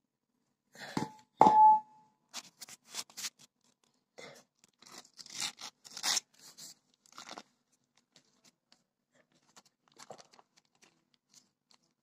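Butter paper being peeled off a baked chocolate cake: irregular crinkling and tearing rustles that thin out after about seven seconds. A sharp knock with a brief ringing tone comes about a second and a half in.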